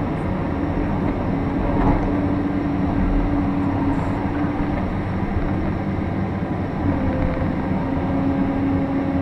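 Cat 349L hydraulic excavator running steadily under load while digging a trench, heard from inside the cab. A steady droning tone runs through the engine noise, drops away about halfway through and comes back near the end.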